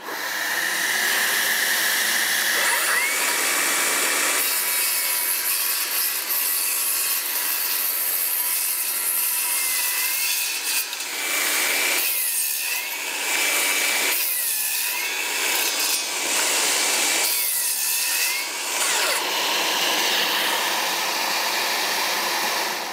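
Milwaukee M18 Fuel rear-handle cordless circular saw cutting through wood. Its motor whine sags several times as the blade bites and loads, then winds down near the end.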